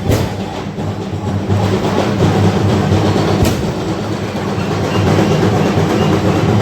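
Loud, dense drumming from a street procession band, with a couple of sharp strikes cutting through the din.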